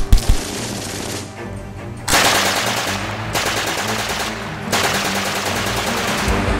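Gunfire: a few sharp shots right at the start, then two long bursts of rapid machine-gun fire, the first from about two seconds in and the second from about five seconds in.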